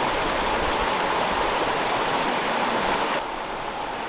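Fast-flowing river water rushing over rocks, a steady hiss of water noise. About three seconds in it drops suddenly to a quieter, duller rush.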